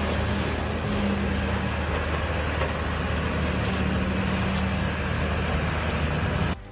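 A large engine or machine running steadily: a low hum under a loud, even rushing noise. It starts abruptly and cuts off just before the end.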